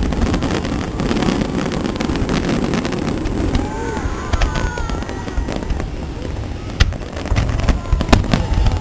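Aerial fireworks shells bursting over a steady low rumble, with sharp bangs that come strongest in the last couple of seconds. A crowd's voices and shouts run underneath.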